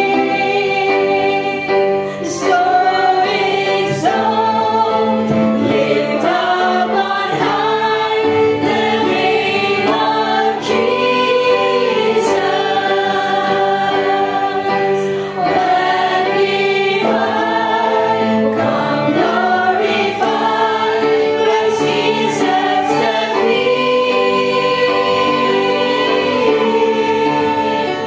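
A small congregation singing a worship song together, women's voices leading, with a violin playing along.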